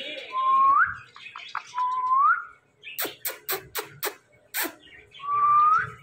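Three short whistles, each sliding up in pitch at the end, with a quick run of five sharp clicks in the middle and one more click soon after.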